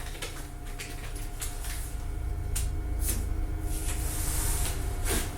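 Tape being pulled off the roll in several short rasping rips, over a steady low hum.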